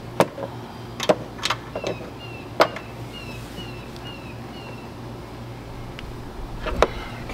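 Scattered sharp clicks and knocks of hands handling hard parts on an outboard motor, most in the first three seconds and one more near the end. In the middle a bird calls a quick series of short falling chirps, about two a second.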